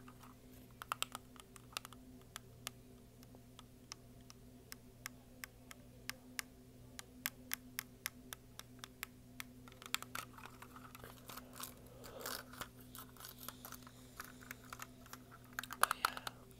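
Fingertips and nails tapping and clicking on a plastic toy car held close to the microphone. The taps are sharp and irregular, a few a second, and grow denser with some light rubbing from about ten seconds in.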